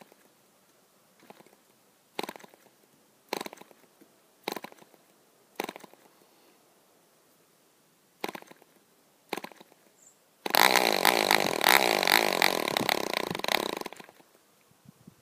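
PAW 1.5cc model diesel engine, run without its muffler, being flicked over by hand: a string of short pops about a second apart as it fires briefly and stops, then about ten seconds in it catches and runs loud and fast for about three and a half seconds before dying abruptly. The owner says a diesel dying like that is sometimes a sign of the needle valve being screwed in too far.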